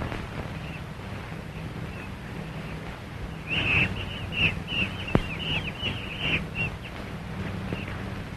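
Monkeys chattering in a run of short, shrill calls for about three seconds midway, with one sharp click among them, over a steady low hum and hiss of an old film soundtrack.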